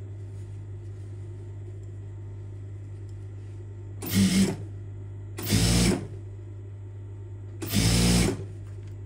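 Sewing machine stitching in three short runs of about half a second each, starting about four seconds in, over a steady low hum.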